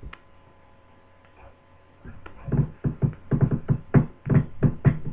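A short burst of music with a beat, about four strokes a second, starting about two seconds in after a quiet spell.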